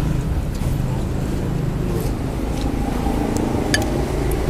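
Steady low rumble of street traffic, with a few sharp clinks of chopsticks and spoons against ceramic soup bowls, most of them near the end.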